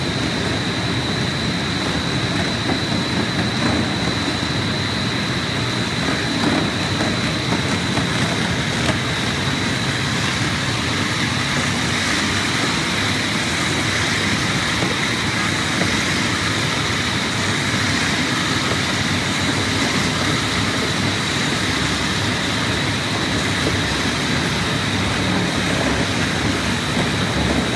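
Innovatech P3200 four-headed planetary floor grinder running steadily, its metal-bond diamonds grinding a tile mortar bed off a concrete floor: a constant grinding din with a steady high whine over it.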